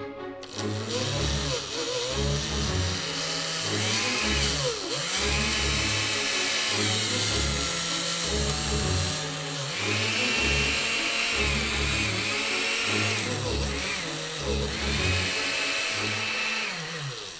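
Osterizer push-button blender motor running, its pitch stepping up and down several times as different speed buttons are pressed. It starts about half a second in and plays over background music with a steady, repeating bass line.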